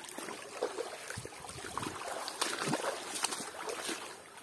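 Irregular splashing and sloshing in shallow stream water over the steady trickle of the stream, busiest in the second half.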